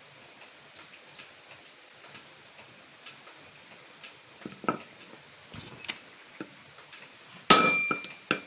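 A few faint taps, then a loud ringing metal clang about a second before the end, followed shortly by a second sharp knock: steel tools and parts striking metal during rear-wheel bearing work.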